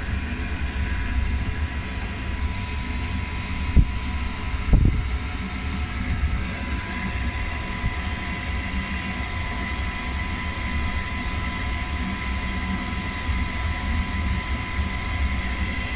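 Chinese 5 kW diesel air heater (Webasto-type) running steadily at full power: a continuous blower and combustion rumble with a thin steady whine. Two knocks about a second apart come about four seconds in.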